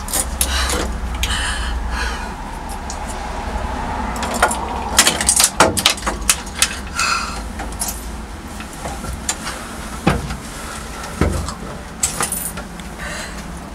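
Steady low rumble of street traffic outside a phone booth, with a scattered series of sharp clicks and knocks from handling inside the booth, thickest from about four to seven seconds in and again a few around ten to twelve seconds.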